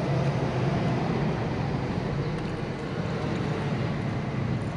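Steady street traffic rumble: a constant low engine hum under an even hiss.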